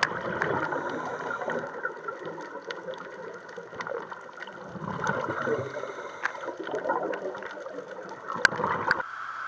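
Muffled underwater sound heard through a camera's waterproof housing: water moving and gurgling with scattered small clicks and crackles, and a sharper click near the end.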